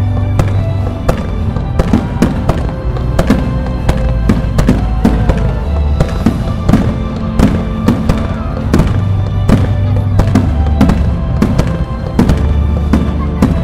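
Fireworks display: aerial shells launching and bursting in quick succession, two or three sharp bangs a second, over music with a heavy steady bass.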